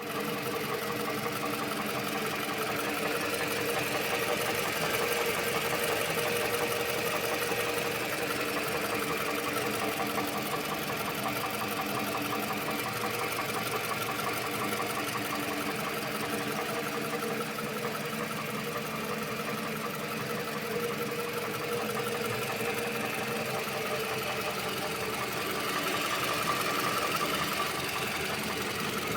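Toyota 2AZ-FE 2.4-litre four-cylinder engine running at idle with a rapid clacking from inside the engine, an extraneous noise whose cause the owner doesn't know.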